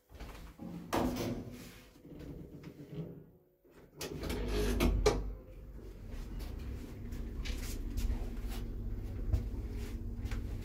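Original 1984 ZREMB 'Osiedlowy' passenger lift: the hinged landing door shuts with a thud and some clatter, then about four seconds in the lift starts with a loud low rumble and runs on with a steady low hum and scattered clicks.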